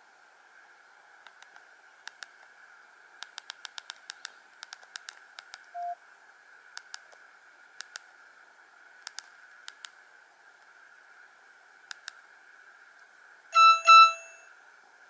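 Small plastic keypad clicks from a Nokia 105 (2017) phone, mostly in quick pairs, with a short low beep about six seconds in, over a faint steady hiss. Near the end the phone's speaker gives two loud, short, buzzy electronic beeps.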